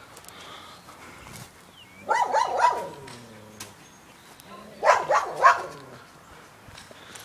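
Dog barking in two quick bursts of three or four barks each, about two seconds in and again about five seconds in.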